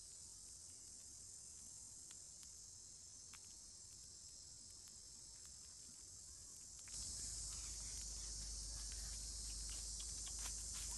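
Steady high-pitched chorus of insects, which gets louder about seven seconds in. Scattered faint clicks sound through it.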